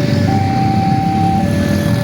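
Railway level-crossing warning alarm sounding its electronic two-tone signal, a higher and a lower tone taking turns about once a second, the warning that a train is approaching and the barrier is closing. A steady low rumble of road vehicles runs beneath it.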